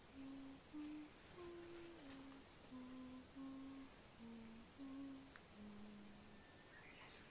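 A person softly humming a slow tune of about nine short held notes that step up and down in pitch, ending on a longer, lower note.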